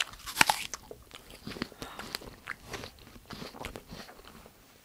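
A crisp green apple bitten into with a loud crunch about half a second in, followed by crunchy chewing: a run of small crunching clicks.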